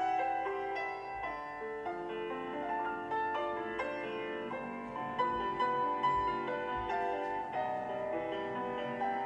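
Solo piano playing classical ballet-class accompaniment for a barre exercise, a steady run of notes.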